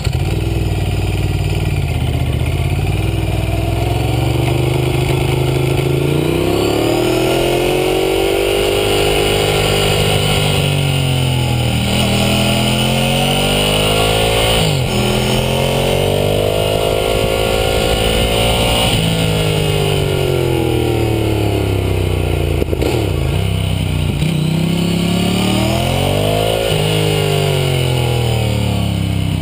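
Ducati Hypermotard 1100's air-cooled L-twin engine heard close up from a camera on the bike's belly, riding hard on a race track. It starts low, then the revs climb and drop again and again as it accelerates out of corners and shuts off or shifts, with sudden pitch drops at the gear changes.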